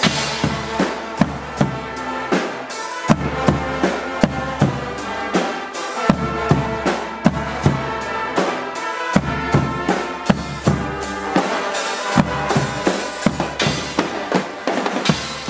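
A Guggenmusik band playing loud brass and percussion: sousaphones, trombones and trumpets in sustained chords over pounding bass drums, a drum kit and cymbals, with a steady beat and a bass line that changes every few seconds.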